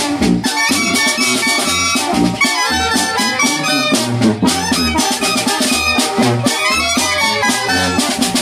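Live Mexican village brass band (banda de viento) of young players performing a tune. Clarinets and trumpets carry the melody over alto horns and a sousaphone bass line, with a bass drum and a cymbal keeping a steady beat.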